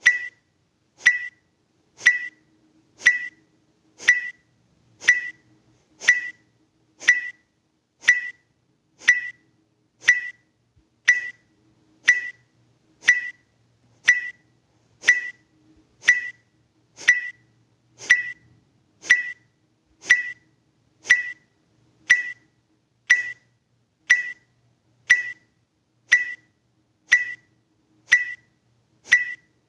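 Electronic timer beep repeating steadily about once a second, each a short high ping, setting the pace for kapalabhati breathing strokes.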